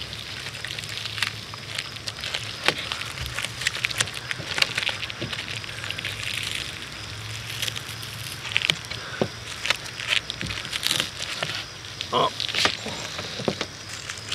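Thin plastic backing membrane and rubber roof gasket being peeled by hand off the adhesive on an aluminium camper roof seam: irregular small crackles and crinkles as the glued film pulls away.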